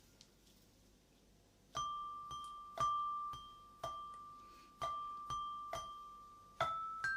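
A small glockenspiel-like metal-bar instrument struck with a little mallet. After a short pause, one bell-like note is struck about twice a second, each strike ringing on. Near the end, a slightly higher note comes in.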